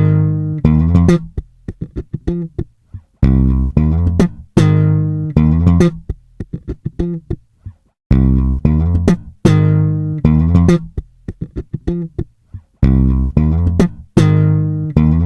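Background music: plucked guitar and bass notes struck and left to ring, in a short phrase that repeats about every five seconds.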